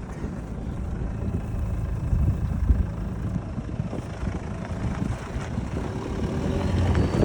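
Jeep Liberty KJ driving on a rough mountain track: the engine runs steadily with a low rumble.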